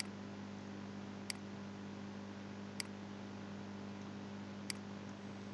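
Four single computer mouse clicks, a second or two apart, over a steady low hum.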